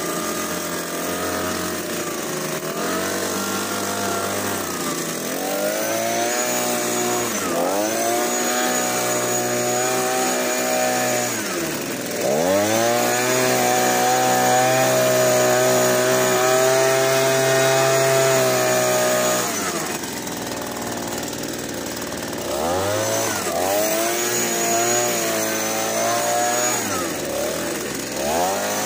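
Petrol leaf blower running, its small engine revved up and throttled back several times. It is held at high revs for several seconds around the middle and drops back to a lower speed for a few seconds after that.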